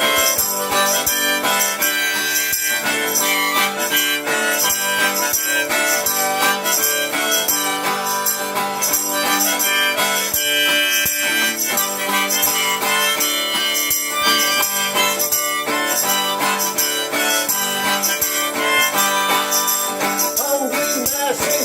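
Instrumental passage of a song: held notes over steady, quick percussion strokes, with no vocals.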